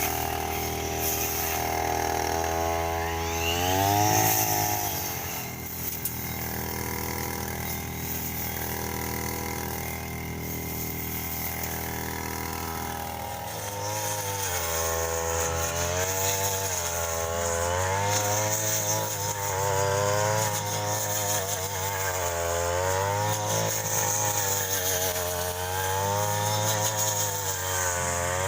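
Petrol grass-cutting machine running while cutting grass. Its engine holds a steady speed at first, then from about halfway its pitch rises and falls every couple of seconds.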